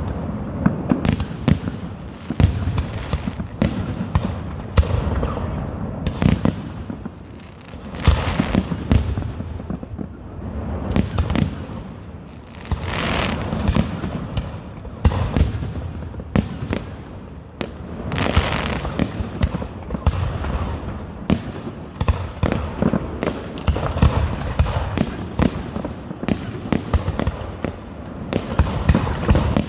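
Fireworks going off in a continuous run of sharp bangs and crackles, with swells of dense crackling every few seconds.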